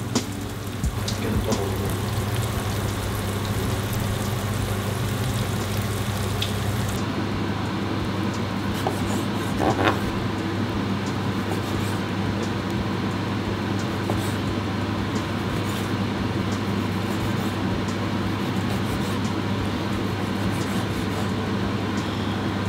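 Steady kitchen noise: an even hiss with a low, constant hum beneath it and a few faint ticks, unbroken throughout, the hiss turning duller about seven seconds in.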